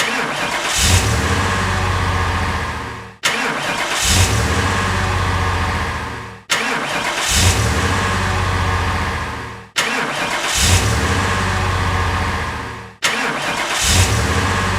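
Car engine starting and running: each take opens with a louder surge about a second in, settles into a steady run, then fades out. The same roughly three-second effect repeats five times.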